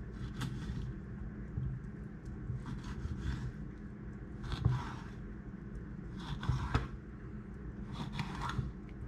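A sharp kitchen knife scoring lines across the skin of a whole, scaleless lookdown fish on a wooden cutting board: a series of short scraping strokes every second or two.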